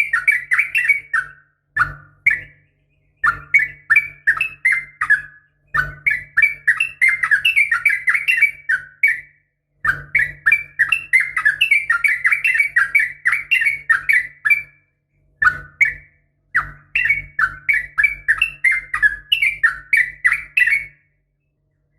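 Yellow-vented bulbul (trucukan) giving rapid, bubbling chattering calls in phrases of one to five seconds with short gaps, with a low hum under them. This is a lure recording sold as a female calling a male, to set a caged male singing. The calls stop about a second before the end.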